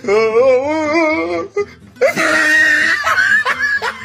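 A wavering, wailing voice for about a second and a half, then a shrill cry and rapid laughter near the end.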